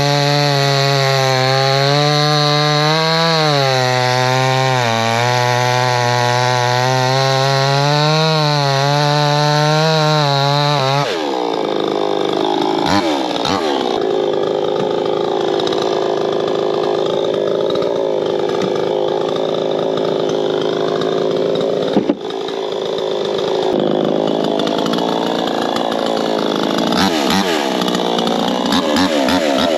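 Proyama 68cc two-stroke chainsaw running at full throttle while cutting a log on a 24-inch bar. The engine note wavers up and down under load, then drops sharply about 11 seconds in and turns rougher as the saw is pulled down by the cut. There is a single sharp knock about two-thirds of the way through.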